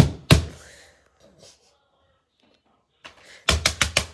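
Sharp knocks and clacks of fidget toys being handled and set down: two loud knocks at the start, then a quick run of about five clicks near the end.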